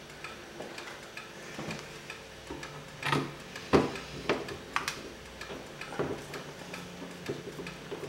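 Small screwdriver driving a screw into a laptop's plastic base cover: scattered light clicks and ticks of the tip turning in the screw head, a few stronger clicks near the middle.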